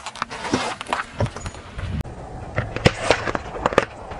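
Car tyre rolling slowly over rough asphalt and pressing down on objects, with many short sharp cracks and crunches of grit under the tread over a low rumble. The sound changes abruptly about halfway through.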